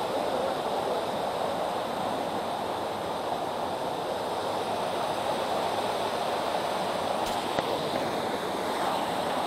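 Creek waterfall: a steady rush of falling water.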